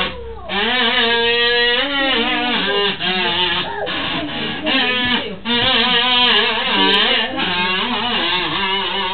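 Performer's voice during a Turkish shadow puppet show, delivered in pitched, sliding, sing-song phrases with some held notes, between speech and singing.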